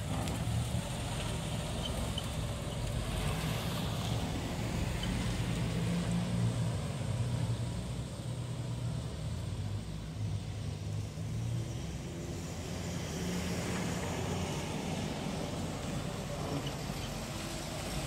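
Old Ford station wagon's engine running as the car pulls away, drives off down the street and comes back; a steady low hum that is fainter around the middle, while the car is farthest away.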